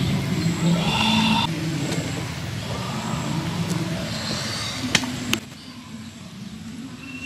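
A motor vehicle engine running nearby, loudest in the first second and a half, with two sharp knocks about five seconds in, after which the sound drops away abruptly.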